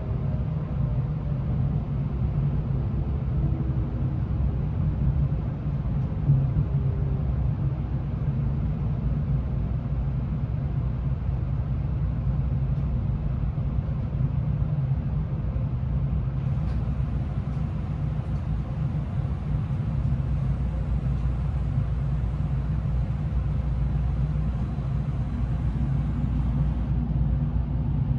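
Interior running noise of a Tokaido Shinkansen N700A train slowing on arrival: a steady low rumble, with faint motor whines falling in pitch over the first several seconds as the train decelerates.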